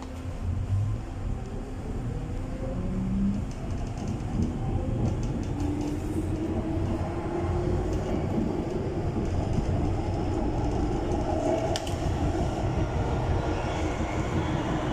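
MTR Disneyland Resort Line M-train pulling away and gathering speed. Its traction motors whine, rising in pitch over the first few seconds, over growing running and wheel noise that gets louder as it accelerates.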